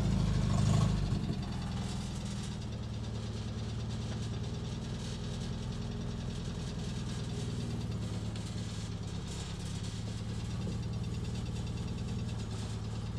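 International Scout Terra's engine idling with a steady, rapid clacking, a little louder for the first second or so and then settling. The owner doesn't yet know the cause of the clacking and thinks it could be that it needs an oil change.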